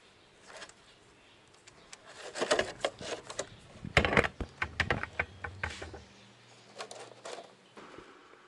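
A quick run of clicks, knocks and clatters, like small hard objects being handled and set down, densest in the middle with a few more near the end.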